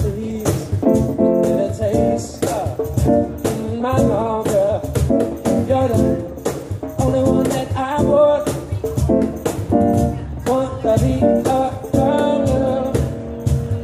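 Live male vocals sung into a microphone over electric stage keyboard chords, with a steady beat underneath.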